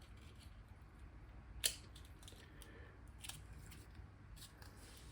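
Faint handling noises: a few light clicks and taps, the sharpest about a second and a half in and another about three seconds in, over a low steady room hum.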